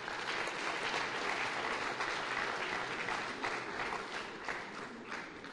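Audience applauding, a dense patter of many hands clapping that swells early on and thins out toward the end.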